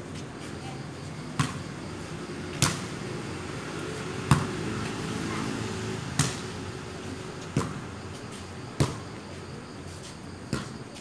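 Volleyball being hit back and forth in a rally: seven sharp slaps of hands and arms on the ball, one every second or two, over steady background noise.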